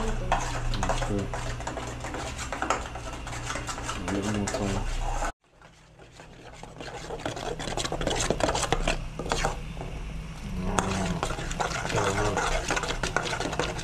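A spoon stirring and scraping around a pot of freshly made caramel, with many small clicks and scrapes. The sound cuts out abruptly about five seconds in and builds back up.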